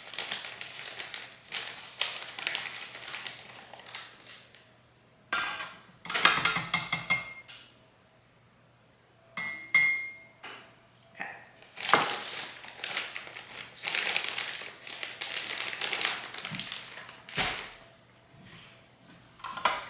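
Kitchen utensils and dishes handled while making frosting: on and off scraping and knocking, with a few short ringing clinks of a utensil against a bowl.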